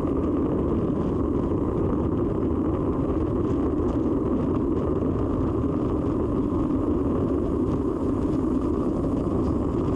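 Steady rush of wind over a bicycle-mounted camera's microphone, mixed with tyre noise, while the bike descends at speed in a road-race bunch.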